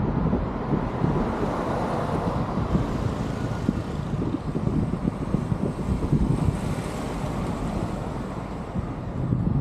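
Wind noise buffeting the microphone over a steady background of city traffic.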